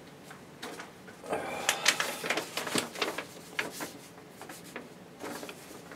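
Sheets of paper rustling and crackling as they are handled and leafed through, in irregular bursts with sharp little crackles, busiest in the middle.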